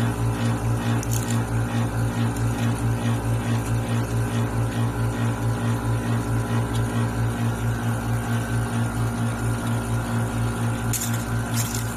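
Benchtop slot-die film coater running, a steady hum that pulses evenly about three times a second from its pump and drive. A couple of light clicks come near the end.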